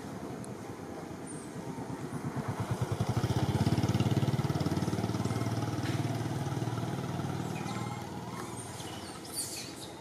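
A motorcycle passes by off to one side, its engine growing louder to a peak about four seconds in and then fading away.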